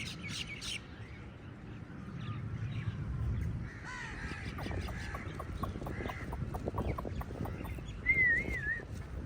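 Crows cawing harshly, with a loud, short wavering whistle about eight seconds in.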